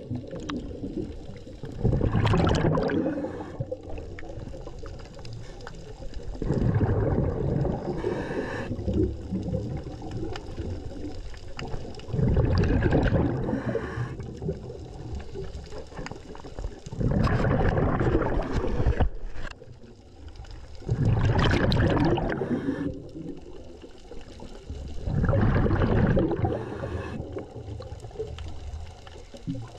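Scuba diver breathing through a regulator underwater: a bubbling rush of exhaled air leaves the exhaust about every four to five seconds, six times, with quieter inhales between.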